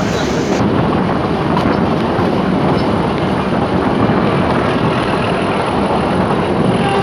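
Narrow-gauge toy train running along the track, a loud, steady running noise of wheels and carriages.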